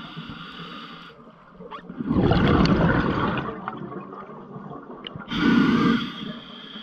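Underwater rushing and bubbling picked up by a diver's camera: a loud surge of bubbling water about two seconds in that lasts over a second, then a second, shorter surge about five and a half seconds in.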